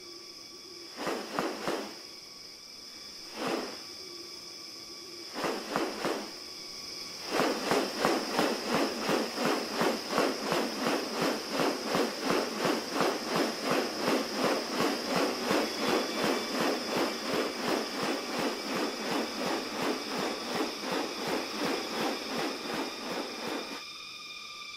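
Rainforest ambience: a steady, high insect drone of several held tones. Over it come a few separate short calls in the first seven seconds, then a long, fast, even run of repeated pulses, about three a second, that stops shortly before the end.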